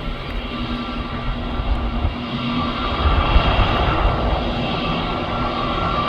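Jet aircraft engines running with a steady roar and a high whine over a low rumble, growing a little louder about halfway through.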